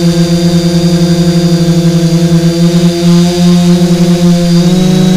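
REPTILE500-V3 quadcopter's four RCX 950KV brushless motors turning 10x4.5-inch propellers: a loud, steady hum with a throbbing beat, its pitch shifting slightly near the end.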